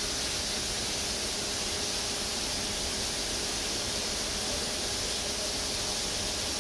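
Steady, even hiss of noise that holds at one level, with no distinct events.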